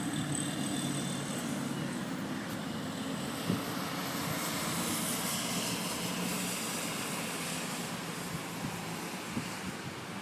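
A steady engine drone with a low hum under a broad hiss, swelling about halfway through and fading toward the end.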